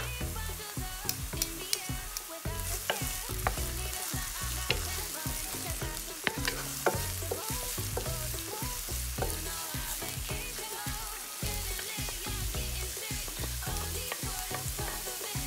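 Diced onion and red chili sizzling in olive oil in a non-stick frying pan, stirred and scraped around with a wooden spatula, with scattered clicks of the spatula against the pan.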